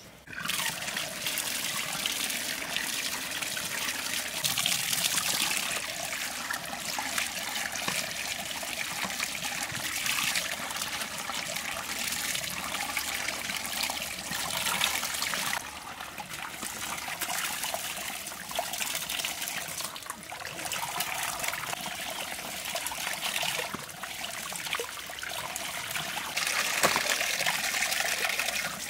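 Running water pouring and splashing into a basin as gloved hands squeeze and wash tripe under the stream; the flow swells and eases every few seconds.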